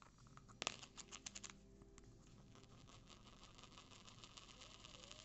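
Red plastic lid clattering on a laminate floor as an Indian ringneck parakeet knocks it about with its beak: a sharp click about half a second in, a short run of clicks, then a long run of fast light ticks as the lid rolls and rattles on its rim.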